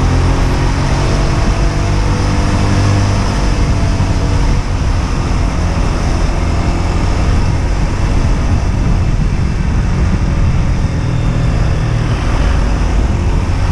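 Husqvarna Svartpilen 125's single-cylinder 125 cc engine running under way. Its note drops slightly over the first couple of seconds, then sits steady under a loud rushing noise.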